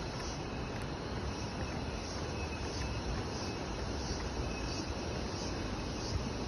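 Steady chorus of tropical insects with a faint repeating pulse, over a constant rushing hiss.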